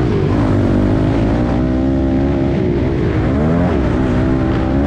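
Dirt bike engine running hard, heard from on board. Its pitch holds high and then drops and climbs back several times as the throttle is rolled off and on or gears change, over a low wind and chassis rumble.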